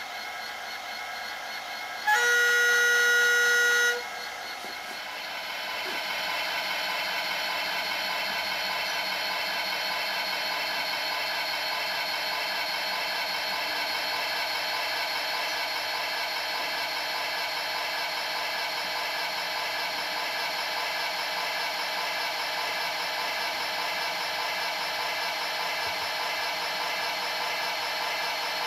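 Sampled sound of a class 111 diesel locomotive playing through an OO gauge model's sound decoder speaker: a horn blast of about two seconds starts about two seconds in. After it the engine revs up and then runs steadily.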